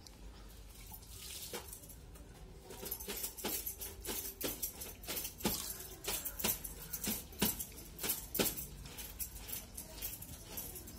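A person eating by hand: a run of sharp crunching clicks, at times about two a second, starting about a second and a half in and dying down near the end.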